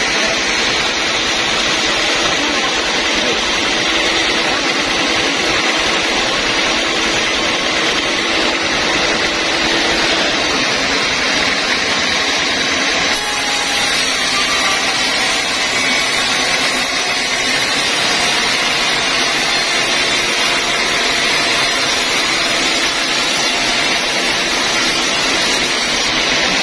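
Band sawmill cutting lengthwise through a squared timber beam, a loud, steady machine noise of the running blade and motor. The sound shifts abruptly about halfway through.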